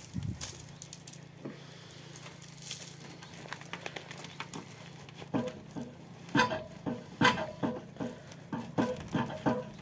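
Gloved hands pressing and working potting soil around a plant in a plastic pot: soft rustling at first, then from about halfway a quick run of sharp, squeaky clicks, two or three a second.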